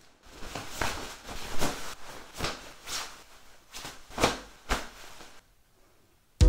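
Irregular rustling of kimono cloth and a cloth cord being pulled and tied around the shoulders, with soft knocks of handling, stopping about a second before the end.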